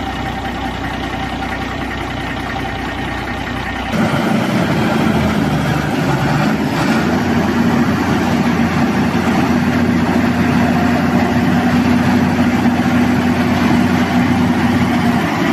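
Renault G 260 truck's inline six-cylinder turbo diesel idling steadily and running well, getting louder about four seconds in.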